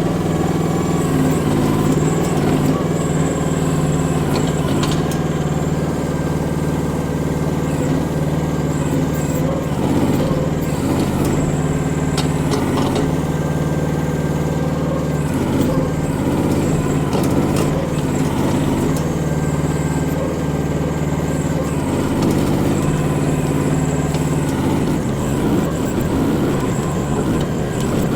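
Micro excavator's engine running steadily under hydraulic load while digging out a small tree stump, with a few sharp knocks along the way.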